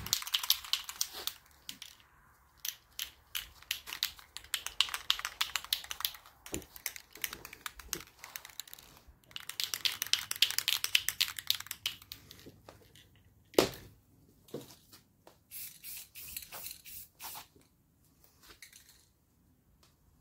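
Aerosol spray paint can being shaken, its mixing ball rattling in fast runs of clicks with short pauses between them. A single sharp click comes a little past the middle, followed by a few brief scattered sounds.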